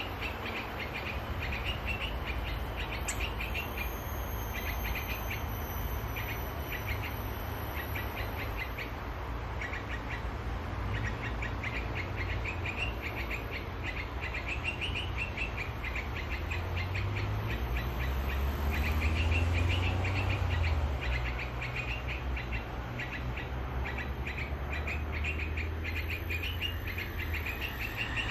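Yellow-vented bulbul (trucukan) calls used as a trapping lure: quick bursts of chirps repeated again and again. Underneath runs a steady low road-traffic rumble that swells briefly about two-thirds of the way through.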